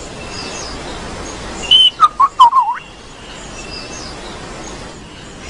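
A bird whistling. A short high note comes just before two seconds in, then four loud whistled notes bend up and down in quick succession, over a steady background hiss.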